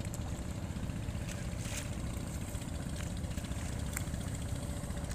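Boat engine running steadily with an even low rumble, with a few faint clicks over it.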